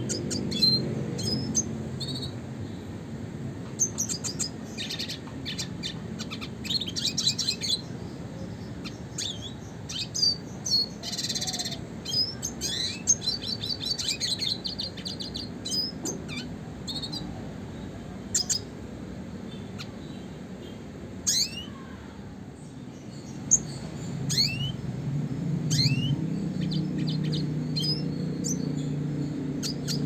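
Male red siskin (Spinus cucullatus) singing: a long run of quick rising chirps and twitters with stretches of fast trilling and a short buzzy note about halfway through. A steady low rumble lies underneath and swells near the end.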